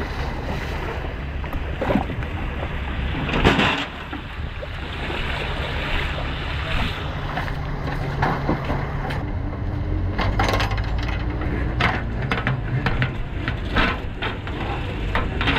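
An engine running steadily at a low idle, with scattered knocks and clatters over it, the loudest about three and a half seconds in.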